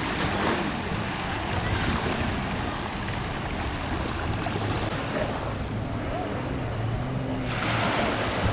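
Steady rushing noise of wind on the microphone and moving water, with a low, steady hum underneath.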